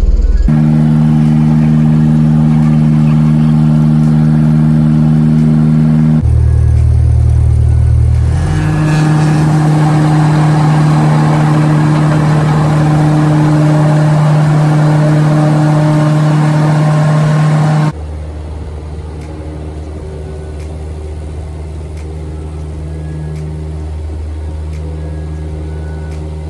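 Light aircraft's piston engine and propeller droning steadily, heard from inside the cockpit during the takeoff run. The tone changes about six and eight seconds in, and the sound drops sharply in level about eighteen seconds in.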